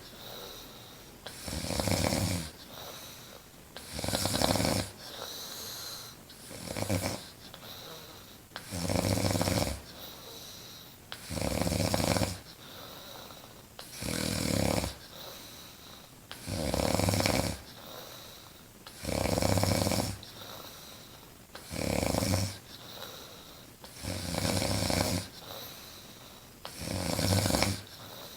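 A woman snoring loudly in her sleep: a low, rattling snore about a second long roughly every two and a half seconds, with quieter breathing between.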